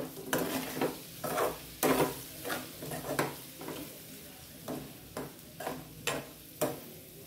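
A steel spoon scraping and knocking against a metal frying pan in about a dozen irregular strokes as small whole potatoes coated in chilli powder are stirred. Oil sizzles faintly underneath.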